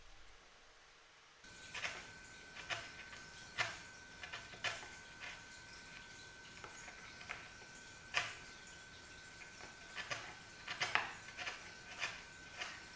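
Chisel paring a pine block held in a clamp: a string of sharp, crisp cuts at irregular intervals, roughly one or two a second, starting about a second and a half in, with a faint steady high whine underneath.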